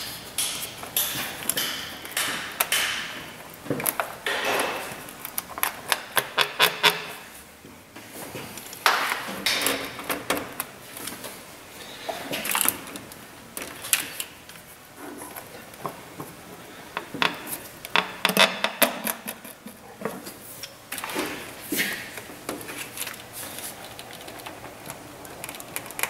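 Hand ratchet clicking in quick runs while valve cover bolts are backed out. Metal tools and loose bolts knock and rattle in between.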